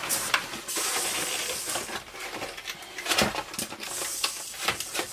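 Plastic packaging rustling and crinkling, mixed with quick clicks and knocks of plastic toys and packages being handled and set down.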